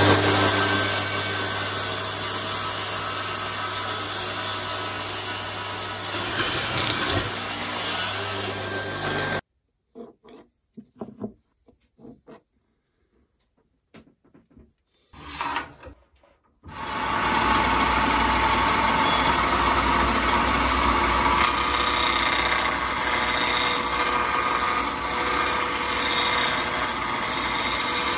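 A table saw running and cutting a wooden block; after about nine seconds it stops and there are only faint scattered taps. From about 17 s a wood lathe is running while a hand chisel cuts the spinning wooden blank.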